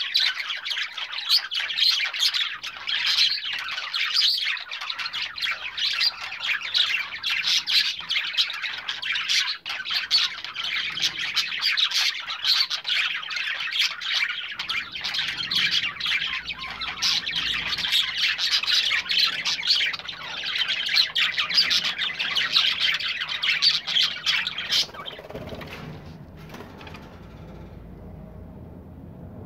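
A group of show budgerigars chattering and warbling continuously with fast, dense chirps. The chatter stops near the end, leaving a faint low hum.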